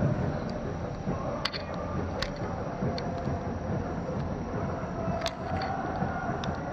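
A distant firework shell's low boom fading away at the very start, then steady outdoor night background noise with a few faint sharp clicks.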